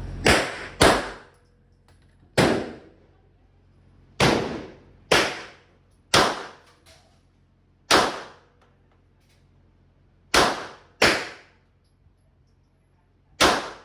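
Glock 17 Gen 5 MOS 9mm pistol firing ten single shots at an uneven, unhurried pace, each a sharp crack with a short ringing tail. Two come in quick pairs, near the start and about ten seconds in.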